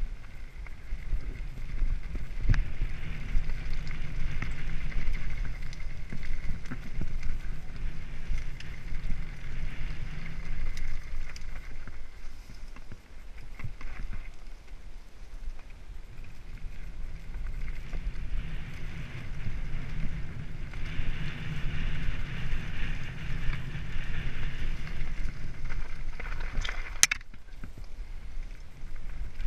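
Mountain bike descending a fast dirt singletrack: a continuous rumble and rattle of tyres and bike over the rough ground, with scattered small knocks and one sharp clack near the end.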